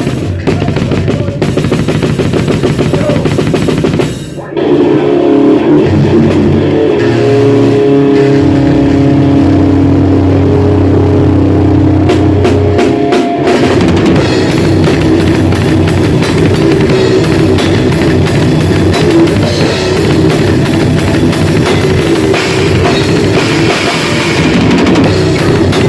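Grindcore band rehearsing at full volume, with drum kit, cymbals and bass drum. A brief break comes about four seconds in, then sustained low chords ring over the drumming.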